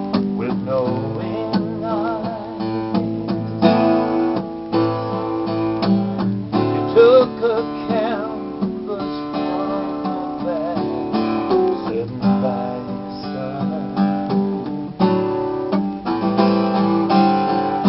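Acoustic guitar strummed steadily in an instrumental break of a country ballad, with a wordless voice humming or vocalising a wavering melody over it in places.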